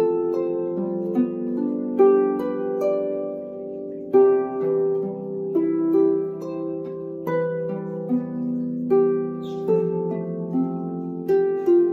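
Lever harp played by hand: a slow melody of plucked notes over lower notes, the strings left ringing so that the notes overlap, with a stronger pluck about every two seconds.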